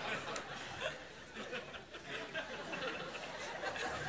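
Studio audience laughing, trailing off into scattered chuckles and murmurs after a punchline.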